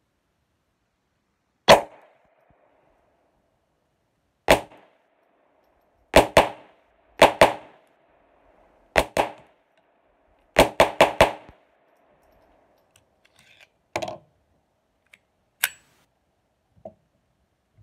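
Colt 1911 .22 LR pistol firing about twelve shots: two single shots, then three quick pairs, then a fast string of four, each with a short ringing echo. A few softer metallic clacks follow as the pistol is handled.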